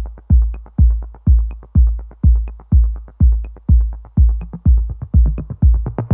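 Background electronic music: a steady kick-drum beat, about two beats a second, with light clicks between the beats.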